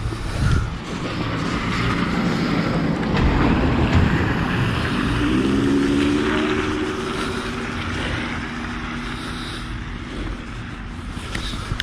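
A car driving past on the street: its tyre and engine noise swells to a peak about midway, with a steady engine hum coming through, then fades away.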